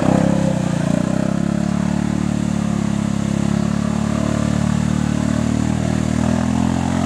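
Yamaha Grizzly 700 ATV's single-cylinder engine running steadily at a held throttle while its tyres spin in deep mud, the quad bogged in a mud hole.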